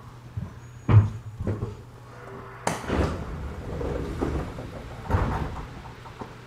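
JR 211 series commuter train's sliding passenger doors opening at a station stop: a run of knocks and thuds with a short sharp hiss of air, over a steady low hum from the stopped train.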